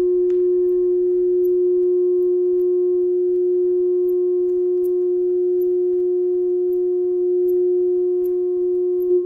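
A loud electronic drone holding one steady, nearly pure pitch with faint higher overtones, part of a live electronic music set; near the end the tone starts to waver.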